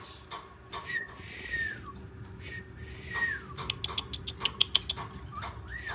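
Pet parrots calling: three short whistles that hold and then drop in pitch, among many scattered light clicks and taps.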